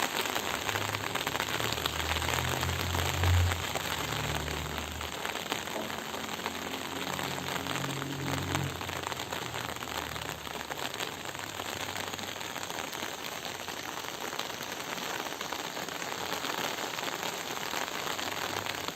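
Steady rain falling, an even hiss made of many drop patters. A low rumble runs under it through the first half, loudest about three seconds in, then fades out.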